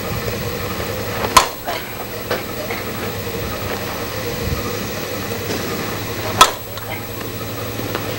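Softball popping sharply into a catcher's mitt, twice, about five seconds apart, with a few faint knocks in between.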